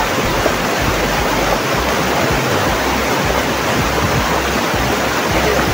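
Loud, steady rushing of a swollen, muddy mountain stream in flood, the water churning fast over rocks.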